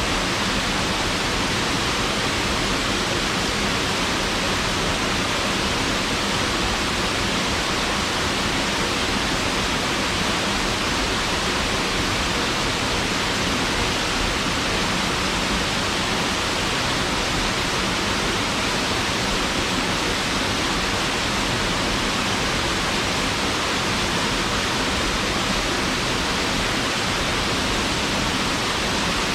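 Waterfall: falling water rushing steadily as an even, unbroken hiss, with no change.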